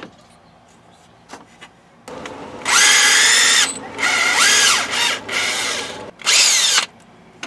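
Power drill turning a Time-Sert counterbore cutter into a stripped bolt hole in an aluminum engine block, in three runs. The first starts about two seconds in, the second runs with the pitch dipping and rising as the speed changes, and a short last run comes near the end.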